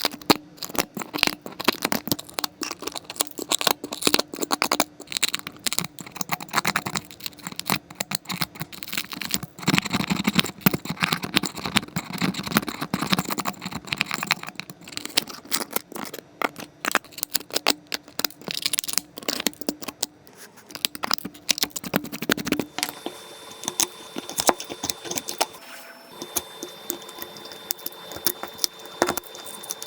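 Dense irregular clicking and scraping of tools working at a phone's cracked back glass. About three-quarters of the way through it gives way to quieter scattered ticks over a faint steady tone.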